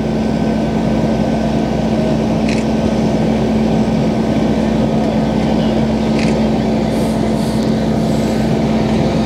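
Heavy-duty tow truck's diesel engine running steadily with a constant low hum, driving its winch as the cable slowly pulls a submerged pickup up the ramp.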